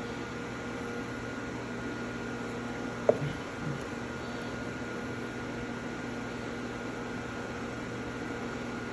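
Steady hum with a constant hiss, as from a running fan or motor. One short click about three seconds in.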